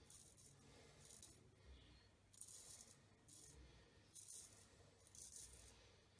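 A custom 7/8 straight razor with an N690 steel blade scraping through lathered stubble in short strokes, about six in a row, each a faint scratchy rasp.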